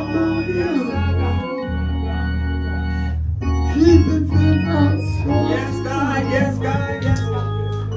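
Organ playing sustained chords over a steady held bass. From about halfway, a voice rises and falls over it.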